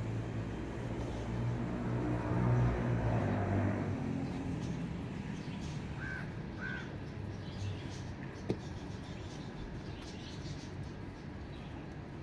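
Crow cawing twice in quick succession about six seconds in, over a low engine hum that is loudest two to three seconds in and fades by about four seconds. A single sharp click follows near the middle.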